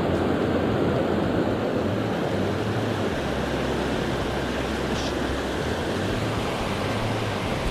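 Steady rush of a mountain stream running high and fast after rain, an even roar of flowing water.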